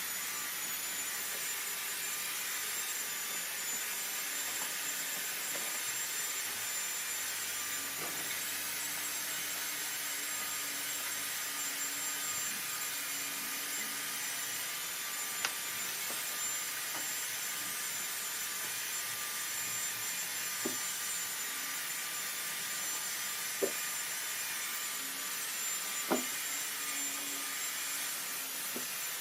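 Steady hiss of a running workshop machine, with a few short, light knocks.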